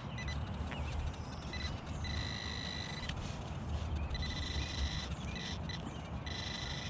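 XP Deus metal detector sounding a steady high target tone, first in short blips and then in longer held stretches about two seconds in, as the coil sweeps back and forth over a target. The target read as a coin but is a pull tab giving a coin-like high tone.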